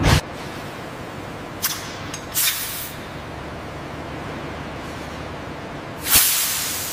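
Sharp hissing bursts over a steady low machine hum: two short hisses about a second and a half and two and a half seconds in, then a louder one about six seconds in that fades away slowly.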